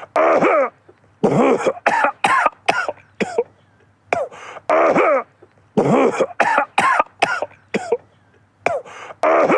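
A man coughing in repeated fits: clusters of several short, voiced coughs with brief pauses between them.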